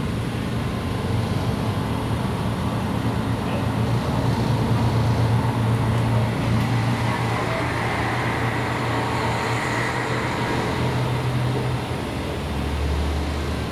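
KiHa 54 diesel railcar idling, a steady low engine hum heard from inside the car. A deeper engine note comes in near the end.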